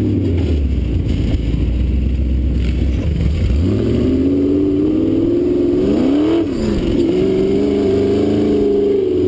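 Dune buggy engine heard from on board while driving over sand. It holds a low steady drone at first, then revs up with a rising pitch about four seconds in, dips briefly around six seconds in, and is held high again.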